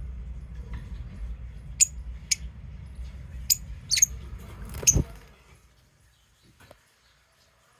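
Pet lovebirds giving short, sharp, high-pitched chirps, about five in the first five seconds, over a low steady rumble. The last chirp comes with a thump, then the sound drops almost to nothing.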